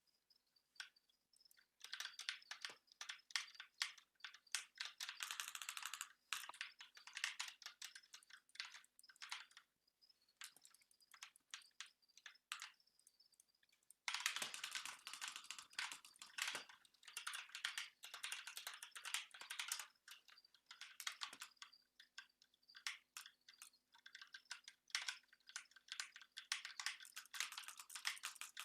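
Typing on a computer keyboard: fast runs of key clicks broken by short pauses, sparser for a few seconds near the middle, then densest from about halfway in.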